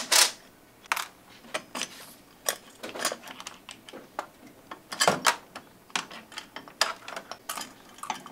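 Irregular clicks, clinks and knocks of hand tools and metal parts being handled on a metal workbench while a Razor Crazy Cart front wheel assembly is worked on, with a louder knock about five seconds in.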